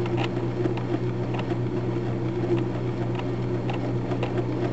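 Old electric household sewing machine running with nothing under the presser foot: its motor hums steadily, with a faint regular clicking from the needle bar and feed mechanism.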